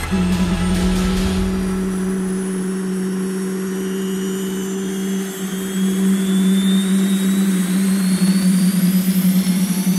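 AiResearch military gas-turbine auxiliary power unit spooling up during start-up: a steady low drone under a high turbine whine that keeps rising in pitch. It grows louder about halfway through.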